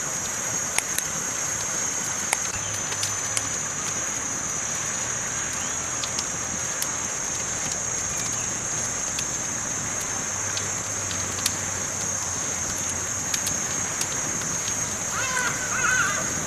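Campfire burning: a steady hiss with sharp crackles and pops scattered through it. Near the end a brief, high, wavering voice-like sound rises above the fire.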